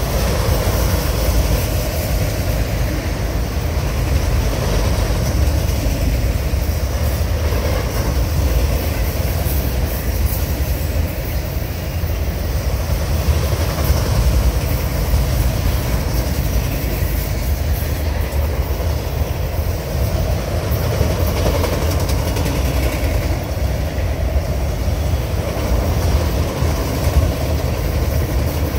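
Freight train of multilevel autorack cars rolling steadily past: a continuous low rumble of the cars with faint clicking of wheels on the rails.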